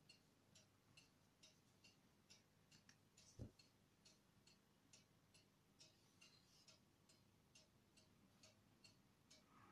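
Near silence with faint, regular ticking at about two ticks a second, and one soft low thump about three and a half seconds in.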